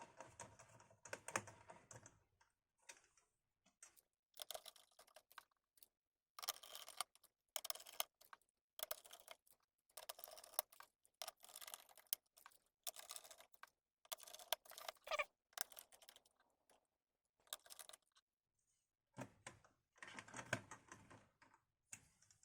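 Small screwdriver driving screws back into a laptop's plastic bottom cover: quiet, irregular clicks and scrapes in short bunches, with brief pauses between screws.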